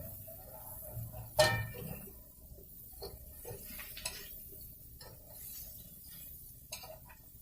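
Kitchen utensils knocking against cookware: scattered light clicks and taps, with one loud ringing clink about a second and a half in.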